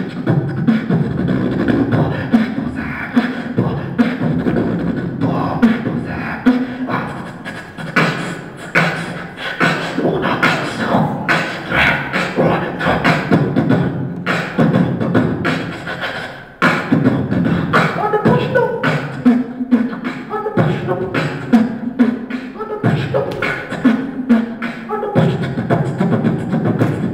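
Beatboxing into a handheld microphone: a continuous rhythmic stream of sharp percussive mouth sounds over low hummed tones, with a brief drop about sixteen seconds in before the beat comes back.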